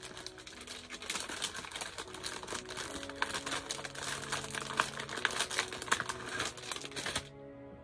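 Clear plastic stamp packet crinkling and rustling as it is handled and searched through, with many small crackles; it stops near the end.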